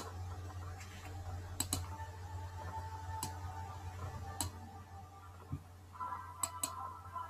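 A handful of sharp, isolated clicks at irregular intervals, over a steady low electrical hum.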